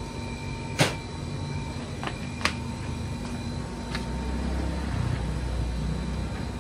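A few sharp knocks and clacks of objects being handled and moved about, the two loudest about one and two and a half seconds in, over a steady background hum. A low rumble grows louder in the second half.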